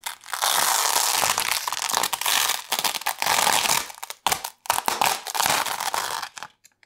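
Clear plastic masking film being peeled off a painted canvas, crinkling and rustling in long pulls, with brief pauses a little after four seconds in.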